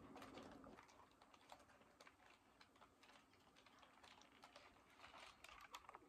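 Near silence, with faint scattered clicks and light taps, a few more of them toward the end.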